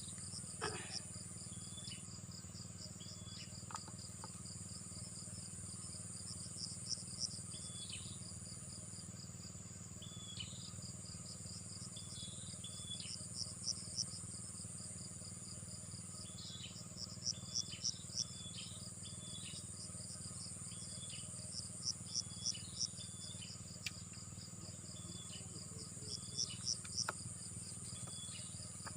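Insects trilling steadily in a high chorus. Every few seconds comes a group of four or five louder pulses, and short chirps repeat below the trill.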